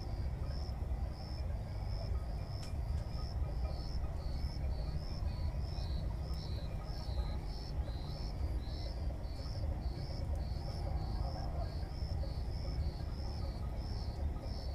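High-pitched insect chirping, repeating evenly about two to three times a second, over a steady low rumble.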